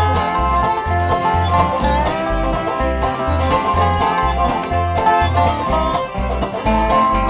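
Bluegrass band playing an instrumental passage: banjo and guitar over a bass line that steps from note to note about twice a second.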